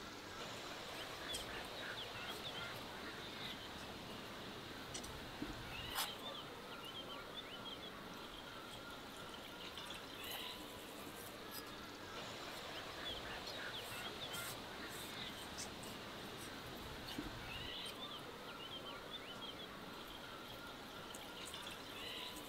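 Small birds chirping in short runs of high calls every few seconds over a steady outdoor hiss, with a few faint crackles of a large knife cutting through the crust of round bread buns.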